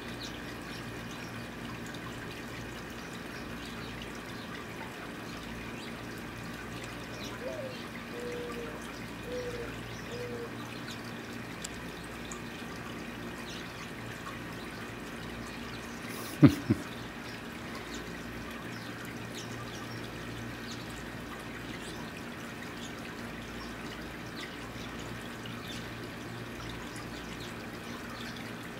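A steady trickling, water-like background with a low hum. About seven seconds in, a dove coos: one rising-and-falling note, then three shorter ones. About halfway through come two sharp thumps in quick succession.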